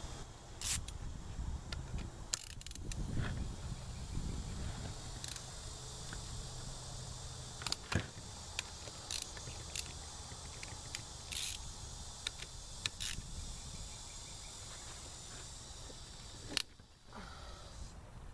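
Hand ratchet loosening the rocker-arm assembly bolts on a Honda F22B1 VTEC cylinder head, with scattered sharp clicks of the ratchet and metal parts over a low steady rumble.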